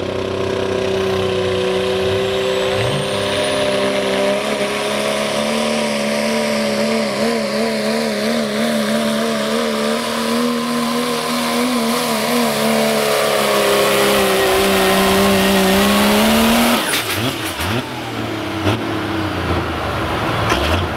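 Diesel Dodge Ram pulling truck at full throttle, dragging a weight-transfer sled. The engine note wavers in the middle of the pull and climbs slightly before cutting off abruptly about 17 seconds in, as the truck comes off the throttle at the end of the pull.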